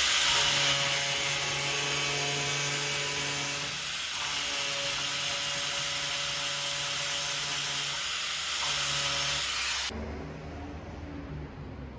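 Power tool cutting steel: a loud, steady hiss over a low hum, dipping briefly twice, then stopping abruptly about ten seconds in.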